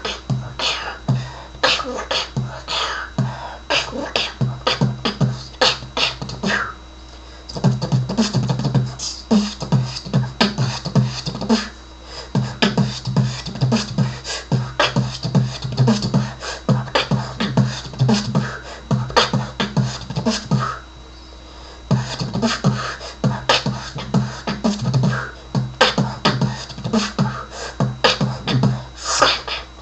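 A person beatboxing a freestyle beat: fast, steady patterns of mouth-made kick drums, snares and hi-hat clicks, with brief breaks about 7, 12 and 21 seconds in.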